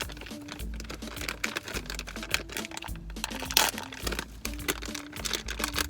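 Plastic blind-bag wrapper crinkling and crackling as it is torn open and handled, over background music.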